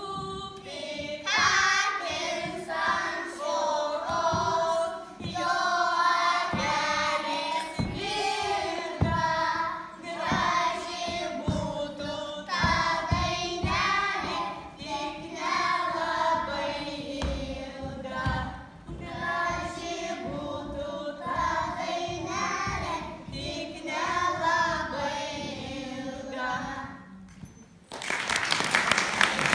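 A group of young children singing a song together in unison, with short thuds of steps on a wooden floor as they move. The singing ends near the close and applause breaks out.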